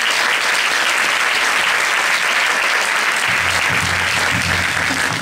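Theatre audience applauding steadily. About three seconds in, music for the dance starts under the clapping with low bass notes.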